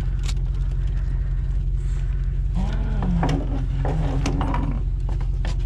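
Pickup truck engine idling with a steady low hum, under a few light clicks and knocks and a short low voice-like sound about two and a half seconds in.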